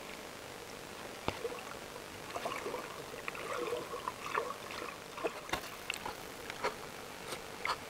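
Water gurgling and bubbling around a camera held just under the sea's surface, with several sharp clicks and taps scattered through it; the camera comes up to the surface during the second half.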